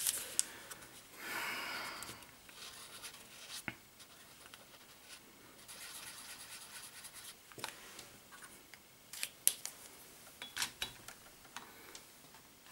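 Paper being handled and folded: irregular rustling, creasing and scraping with occasional crisp clicks, and a longer rustle about a second in.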